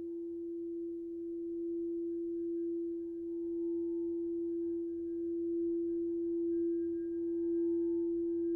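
Singing bowl ringing as one long, steady low tone with faint higher overtones, its loudness slowly wavering.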